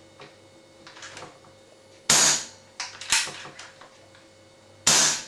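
Webley FX2000 .177 air rifle fired with an unbranded silencer fitted: a sharp pop about two seconds in and another near the end, with clicks and a third loud clack between them.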